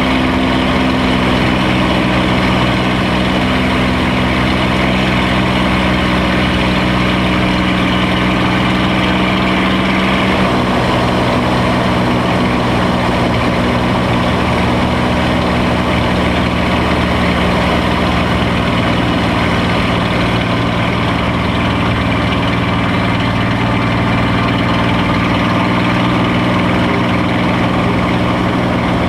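A Spitfire's Rolls-Royce Merlin V12 engine running steadily in flight, heard from inside the cockpit. Its note shifts slightly about ten seconds in.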